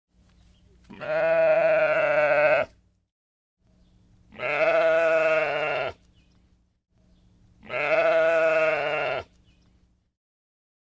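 Sheep bleating: three long, wavering bleats, each about a second and a half, with pauses between.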